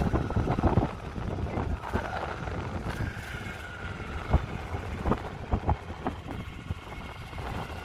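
Wind buffeting the microphone over a steady low engine rumble, with scattered sharp gusty knocks.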